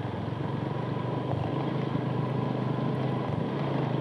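Motorcycle engine running steadily at low revs while riding slowly in a low gear.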